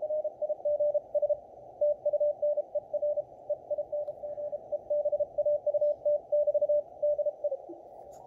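Morse code (CW) signal received on a Belka-DSP shortwave receiver in CW mode: a steady beeping tone keyed on and off in dots and dashes over muffled band hiss. The keying stops shortly before the end.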